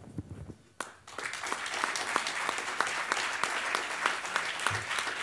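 An audience breaks into applause about a second in, after a single sharp click, and keeps clapping steadily.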